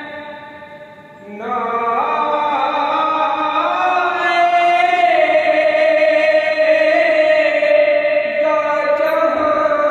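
A man's unaccompanied devotional recitation, chanted in long, drawn-out melodic notes. One phrase trails off, and a new one starts about a second and a half in and is held through the rest.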